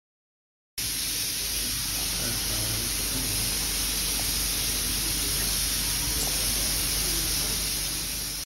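Steady hiss of steam in the cab of the 141 R steam locomotive, starting abruptly about a second in.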